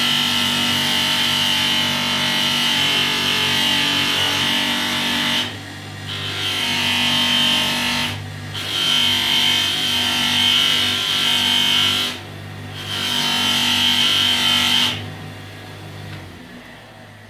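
Brass part held against the spinning polishing wheel of an electric pedestal grinder, a steady hiss of metal on the compound-loaded wheel over the motor's hum. The part is lifted off three times for a moment and taken away about 15 seconds in, after which the motor hum fades.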